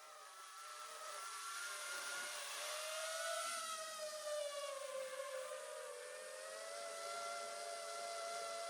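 FPV quadcopter's brushless motors whining, the pitch swelling up and easing down slowly as the throttle changes.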